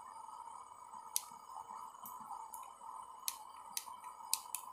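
Bulin gas camping stove burner running under a lidded pot: a faint, steady hiss, not a loud stove, with a few sharp clicks scattered through it.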